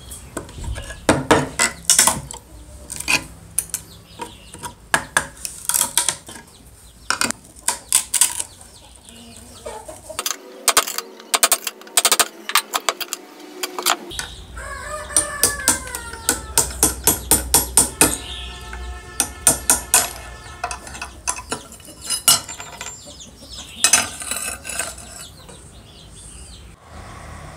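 An old wooden knife handle is pried and split off its rusty tang with a flat metal bar and by hand: repeated sharp cracks, snaps and knocks of dry wood and metal against stone. About halfway through, a rooster crows in the background.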